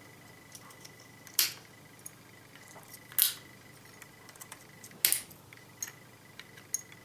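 Plastic of a mains (IEC) power connector cracking as pieces are broken off with pliers: three sharp snaps about two seconds apart, with small clicks of the pliers and plastic between them.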